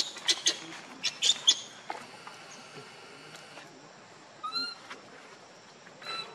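Baby macaque giving a quick series of short, high-pitched squeals in the first second and a half, then two brief pitched calls later on.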